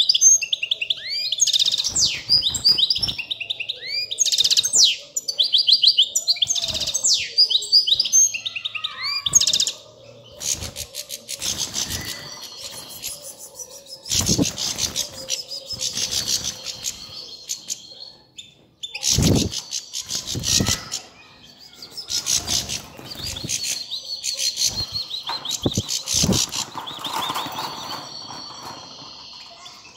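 European goldfinches in a cage singing and twittering, a fast tumbling run of high chirps and trills that is busiest in the first third and thins out later. The song is broken by a few louder flurries of wing flapping about halfway through. The pair is in breeding condition.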